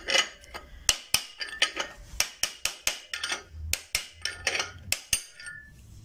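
Hammer blows on a steel drift, about four a second, knocking the worn inner bearing race out of a VAZ 2102 front wheel hub; sharp metallic clinks that stop shortly before the end.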